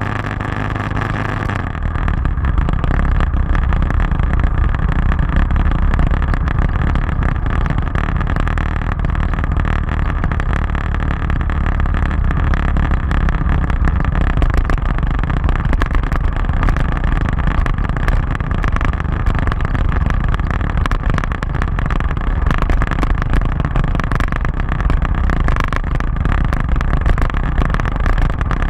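Motorcycle engine running under way on a ride, heard from the bike-mounted camera as a steady low rumble that grows louder about two seconds in.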